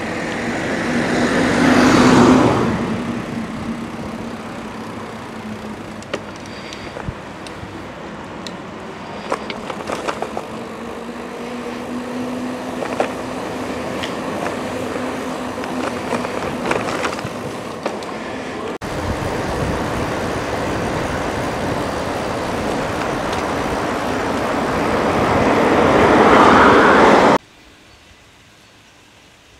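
Road traffic with steady wind and rolling noise: a car passes close by about two seconds in. Scattered light clicks follow, and near the end a second swell builds and cuts off suddenly.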